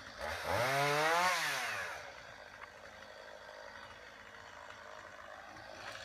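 A chainsaw's small two-stroke engine revs up and back down over about the first two seconds, then drops to a lower, steady running sound.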